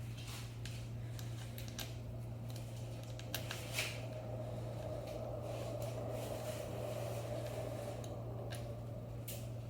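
Light clicks and handling noises of small scooter handlebar parts being fitted by hand, over a steady low hum.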